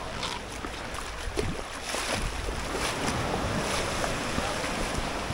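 Sandaled footsteps splashing through shallow seawater on a rocky tidal flat, with a few soft splashes a second apart. Wind noise on the microphone and the wash of surf run steadily beneath them.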